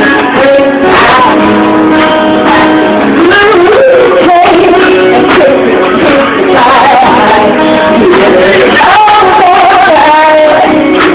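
Loud song with singing over guitar accompaniment.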